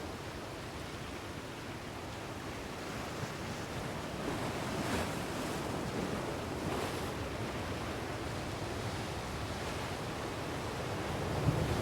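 Ocean waves breaking on a beach: a steady wash of surf that swells softly a few times.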